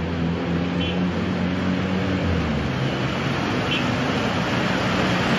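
A car engine running at low revs while its tyre pushes through floodwater, over a steady rush of churning water. The engine hum fades about halfway through, leaving the water noise.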